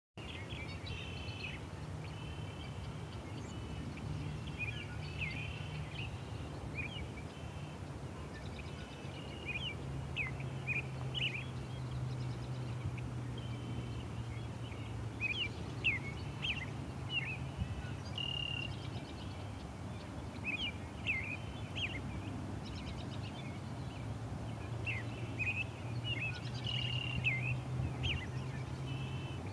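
Steady rushing of a river in flood with a low hum beneath it, while small birds chirp in short, quick repeated calls throughout.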